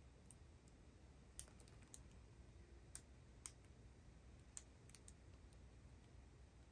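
Near silence: room tone with a low hum and faint, scattered small clicks.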